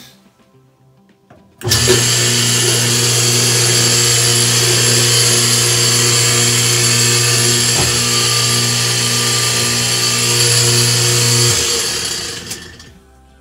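Whirlpool direct-drive top-load washer's motor and drive running in the spin cycle with a loud whirring, a steady hum and a regular pulse, while the spin basket does not turn: the sign of a broken motor coupler. It starts abruptly about two seconds in and winds down near the end.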